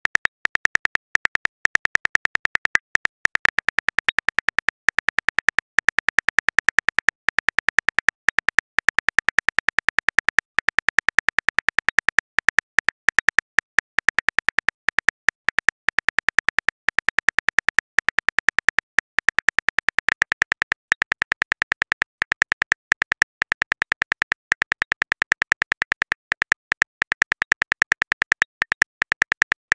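iPhone-style keyboard click sounds as a message is typed out: a rapid run of sharp key clicks with brief pauses.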